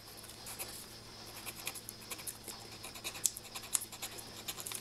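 Felt-tip marker scratching quietly on paper in quick, irregular strokes as a picture is coloured in.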